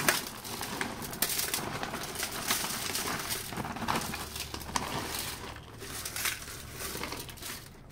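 Dry applewood smoking chips being poured from a plastic bag into a foil-lined baking tray and spread by hand: a steady rustle with many small clicks, and crinkling of the foil and bag.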